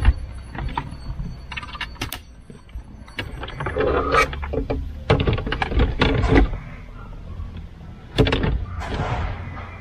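Hard plastic clicking, knocking and scraping as an aftermarket Android head unit and its bezel are pushed and seated into a car's dashboard opening, in irregular clusters with a sharp knock near the end, over a steady low hum.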